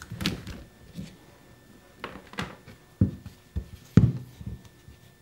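Rubber band pulled off a white two-part slip-casting mold, then the mold knocked upright on a wooden workbench and its halves worked apart: a series of short knocks and clacks, the loudest about four seconds in.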